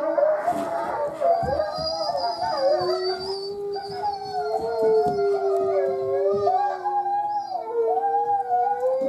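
A chorus of canine howls: several long, drawn-out howls at different pitches overlapping, some gliding up or down.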